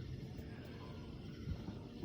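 Faint outdoor background noise with one soft, low thump about one and a half seconds in, a distant firework bang.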